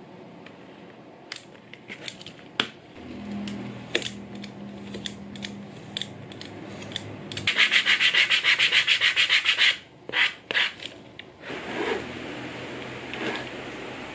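Sandpaper rubbed quickly back and forth over a leather edge: about two seconds of fast, even sanding strokes, roughly seven a second, preceded by scattered light clicks and scrapes of handwork and followed by a few softer rubs.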